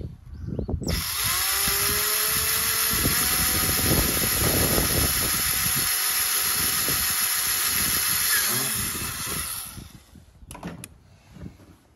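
Cordless drill boring holes through a plastic motorcycle top box. The motor spins up with a rising whine about a second in, runs steadily for about eight seconds, then winds down and stops.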